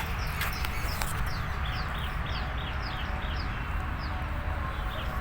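A bird calling a rapid series of short, high, downward-sliding chirps, about three a second, starting a second or so in, over a steady low rumble.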